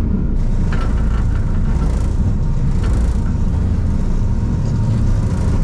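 Lift car climbing the zipwire tower: a steady low rumble with a faint steady hum over it and a few light rattles.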